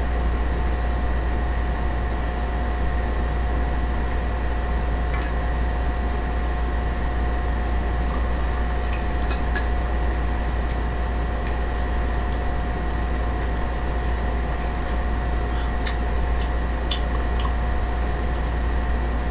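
Steady low hum and hiss with two constant tones, the background drone of the room and recording setup, with a few faint light clicks scattered through it.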